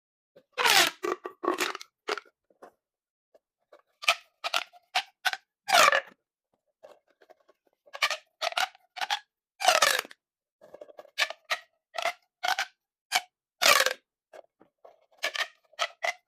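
Plastic pop tubes being stretched and squashed, giving a string of short crackling pops at irregular intervals, some with a quick sweeping pitch.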